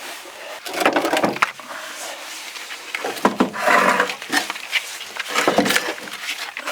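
Irregular clicks, knocks and scrapes of battery cables and terminal parts being handled while they are sorted for connection to the plus and minus posts.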